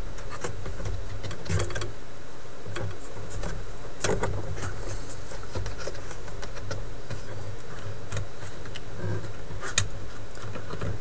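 Scattered small clicks, knocks and scrapes of a record player's chassis being worked back into its wooden cabinet by hand, over a steady low hum.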